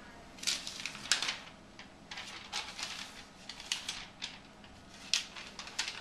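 A stiff glossy paper card crinkling and tapping on a tile floor as a toddler picks it up and handles it: a string of irregular crackles and clicks, some in quick clusters.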